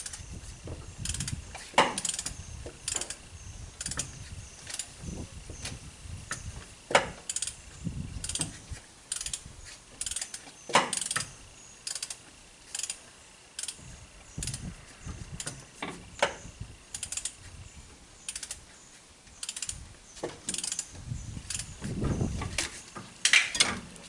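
Ratchet wrench clicking in short, irregular strokes as the Toyota 1NZ engine is turned over by hand, with oil squirted into the cylinders to build up compression.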